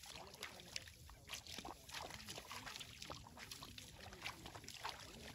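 Shallow paddy water sloshing, with short irregular splashes, as rice seedlings are pushed by hand into flooded mud.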